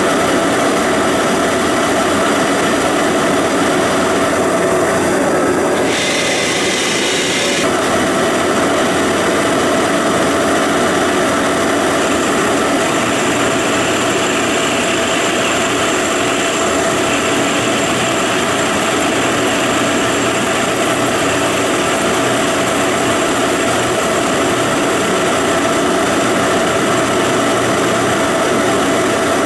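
A large Monarch engine lathe running steadily with the chuck spinning as the tool takes a turning cut on a steel part. A few seconds in there is a short, rougher stretch, and a thin high whine joins about twelve seconds in.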